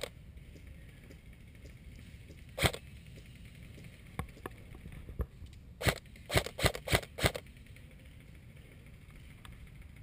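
Airsoft guns firing single shots: one sharp crack at the start, another about two and a half seconds later, then a quick string of about six shots a few seconds after that.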